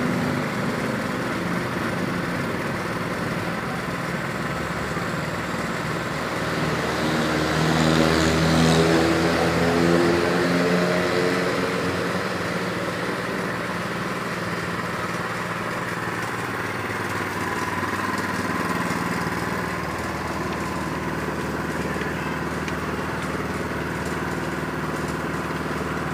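Small single-cylinder petrol engine running steadily as it drives a mini cement mixer's drum through a belt and pulley. The engine speeds up and gets louder for a few seconds about eight seconds in, then settles back to its steady run.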